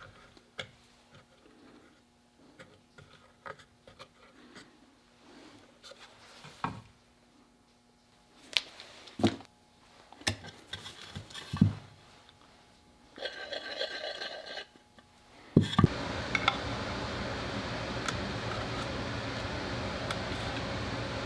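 Scattered knocks, clicks and scrapes of objects being handled on a workbench, with a short rattling buzz about 13 seconds in. After a final loud knock about 16 seconds in, a steady machine noise starts and runs evenly.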